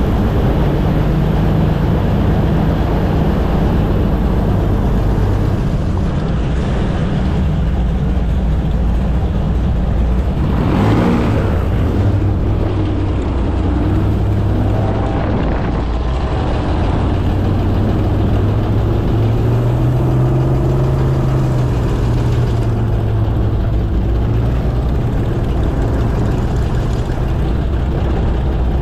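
Airboat engine and propeller running steadily at cruising speed, with a loud low drone that shifts in pitch now and then and swells briefly about eleven seconds in.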